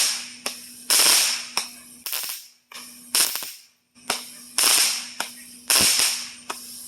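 Small novelty ground firework going off in a quick string of sharp pops, about one or two a second, each trailing off in a hiss.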